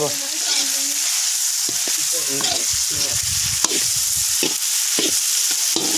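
Food sizzling in hot oil in a pan while a ladle stirs and scrapes through it: a steady high hiss with irregular scraping strokes.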